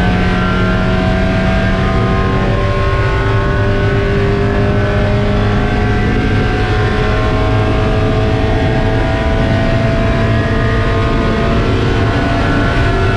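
Spec Miata race car's four-cylinder engine at full throttle, heard from inside the car, pulling through a gear with its note climbing slowly.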